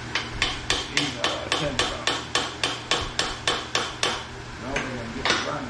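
Quick, even hammer taps, about four a second, some fifteen in a row, then a short pause and two more taps near the end.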